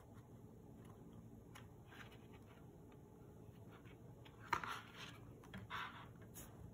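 Faint room tone, then a stiff cardboard board-book page being turned about two-thirds of the way through: a sharp tap followed by two brief scuffs as the page is flipped and laid flat.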